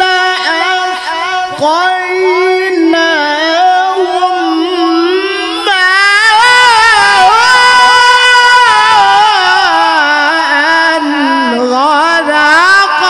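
A male qari's voice in melodious, heavily ornamented Quran recitation through a microphone: long held notes in a high register, wavering and turning in pitch, climbing to a higher, louder passage about six seconds in, then dipping and rising again near the end.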